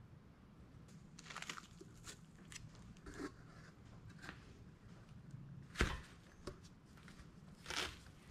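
Faint, scattered handling sounds as a framed metal print and its foam packaging wrap are moved about on a workbench: light taps and rustles, with one sharp knock about two-thirds of the way through and a short rustle near the end, over a faint low hum.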